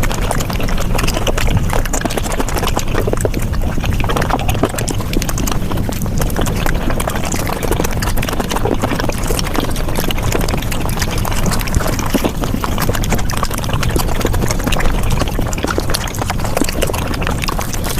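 Mukbang chewing and mouth sounds of eating paratha or luchi, sped up five times into a dense, rapid, unbroken stream of wet clicks and smacks.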